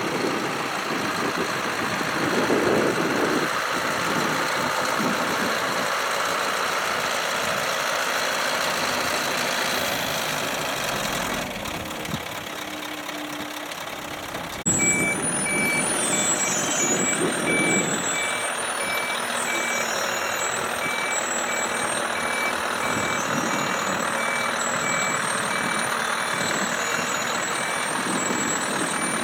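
Heavy truck diesel engine running with an uneven low rumble. From about halfway a reversing alarm beeps at a steady, even pace.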